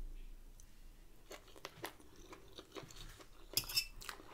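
Close-up chewing of rice and chewy chicken gizzards, with scattered small crunches and wet mouth clicks. A louder cluster of crunches comes about three and a half seconds in.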